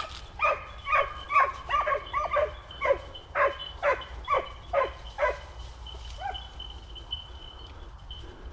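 Boar-hunting dogs barking in a rapid run, about two to three barks a second, each bark dropping in pitch, for some five seconds, then one or two fainter barks: the dogs giving tongue on a wild boar.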